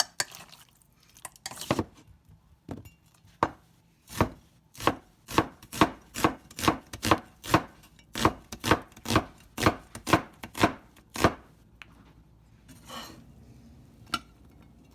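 Knife chopping on a cutting board: a few single strokes, then a steady run of about twenty chops, about three a second, that stops about four seconds before the end.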